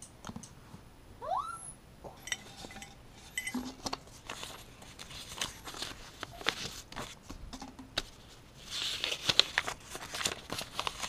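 Paper slips being handled: scattered light clicks and crinkles, with a denser burst of paper rustling near the end as a folded note is opened. There is a short rising squeak about a second in.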